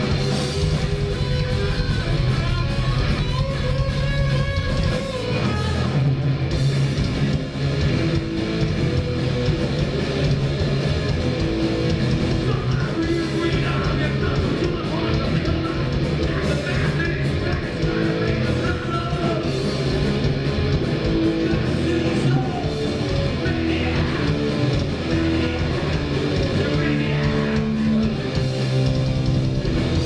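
Punk band playing live on stage: loud distorted electric guitars, bass and drums going steadily, with a singer's voice coming in partway through.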